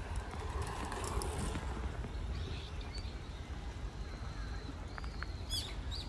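Birds chirping, with short high calls scattered through and a sharper one near the end, over a steady low rumble on the microphone.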